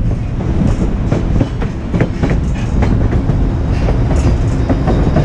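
White Pass & Yukon Route narrow-gauge passenger train running, heard from aboard a coach: a steady low rumble with irregular clicks and knocks of the wheels over the rails.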